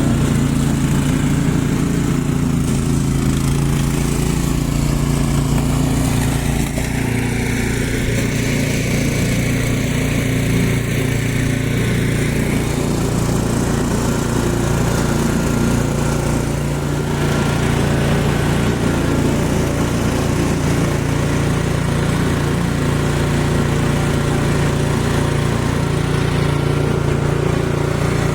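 An engine running steadily with a constant hum, the low part of its sound shifting slightly about two-thirds of the way through.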